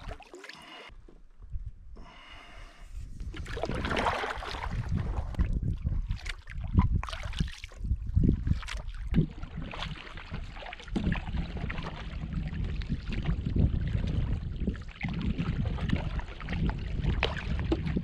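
A canoe being paddled upriver: irregular paddle strokes and splashing water, with the paddler's breathing. It gets louder about three seconds in.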